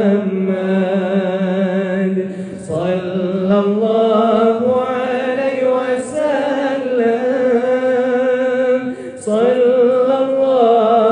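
Voices chanting Sufi dhikr: long, held, melodic phrases that break off briefly twice, about three seconds in and again near nine seconds.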